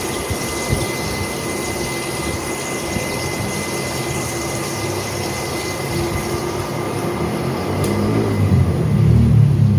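Manual lathe running while boring metal: a steady machine hum with a constant high whine. About eight seconds in, the whine stops after a click and a louder low rumble takes over.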